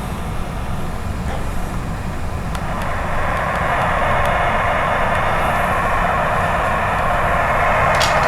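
Cassette recorder playing back a TRS-80 Color Computer program tape, its FSK data tones coming through as a steady buzzing hiss over a low hum, growing louder about three seconds in. Two short clicks near the end.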